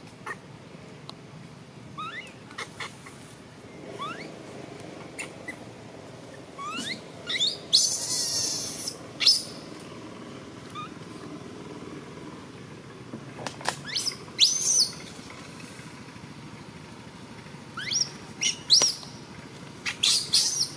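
Baby monkey crying in distress: bunches of short, high-pitched rising squeals every few seconds, with harsh louder screams about eight seconds in and again around fourteen seconds.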